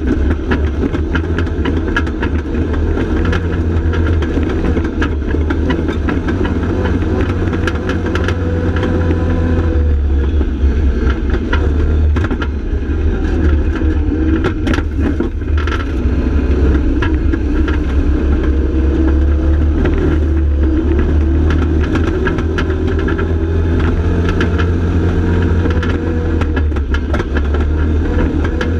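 Side-by-side UTV engine running under load on a dirt trail, its pitch rising and falling with the throttle. Frequent rattles and knocks come from the chassis and roll cage over the bumps.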